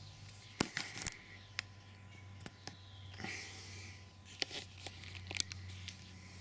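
Camera handling noise as the camera is moved in close and refocused: scattered light clicks and knocks and a brief rustle, over a steady low hum.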